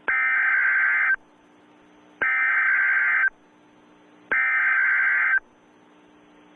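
Emergency Alert System SAME header: three bursts of digital data tones, each about a second long with about a second's pause between them. They are the coded preamble that opens a new alert and carries its event type and warned area. A faint steady hum and hiss runs under the pauses.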